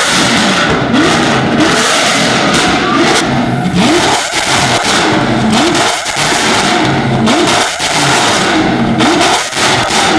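Lamborghini Aventador SVJ's naturally aspirated V12 revved again and again through its open Valvetronic exhaust. It blips up and drops back about once a second, with sharp cracks between the revs, and is very loud.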